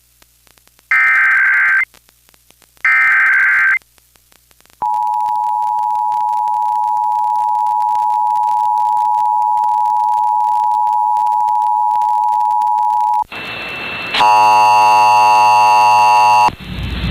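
Emergency Alert System tones: the last two SAME header data bursts, short warbling screeches about a second each, then the two-tone EAS attention signal held steady for about eight seconds. It cuts off into a second of hiss and then a harsh buzzing tone with many overtones for about two seconds.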